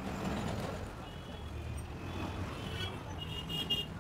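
Road traffic rumbling steadily, with thin high horn tones from vehicles sounding from about a second in, more of them near the end.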